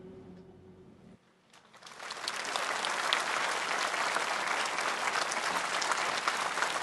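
The last held chord of the music fades out, then a short hush. About a second and a half in, an audience breaks into applause that builds within half a second to steady, dense clapping.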